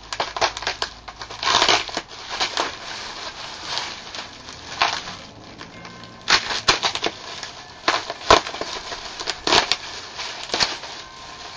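Plastic bubble wrap being cut, pulled and crumpled by hand, crinkling and crackling in irregular bursts.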